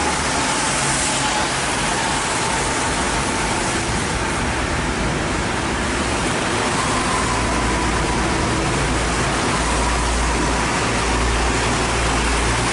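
Steady hiss of heavy rain and tyres on a wet road, with a low engine rumble that grows stronger from about seven seconds in.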